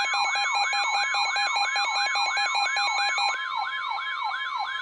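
Weather alert radios sounding their alarms together for an incoming severe thunderstorm warning: a fast warbling siren tone sweeping down about four to five times a second over a steady high alert tone, with pulsing beeps that stop about three seconds in.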